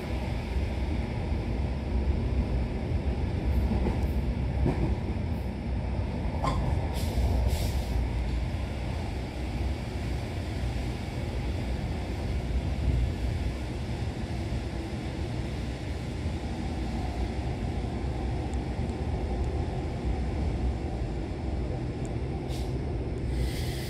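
NMBS/SNCB classic electric multiple unit train running, a steady low rumble with a few brief sharp sounds over it.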